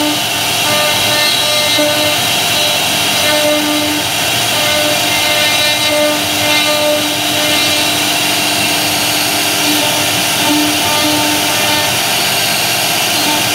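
CNC router spindle running steadily while a V-bit carves a pattern into a wood board, with a low hum that comes and goes.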